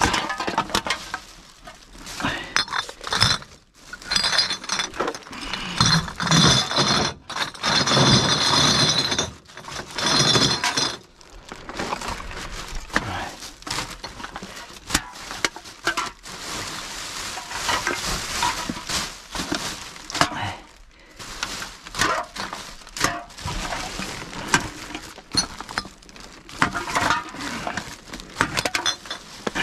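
Aluminium drink cans clinking and rattling against each other as they are pulled out of garbage bags by hand, with plastic bags rustling and glass clinking now and then. The clatter comes in repeated short runs, busiest between about six and ten seconds in.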